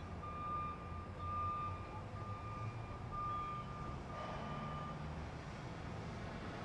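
Vehicle backup alarm beeping about once a second, five beeps that stop about five seconds in, over a steady low rumble.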